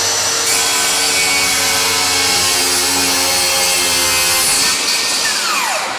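DeWalt circular saw running and cutting a 45-degree angle across a cedar board. Its whine holds steady through the cut, then falls in pitch near the end as the blade spins down.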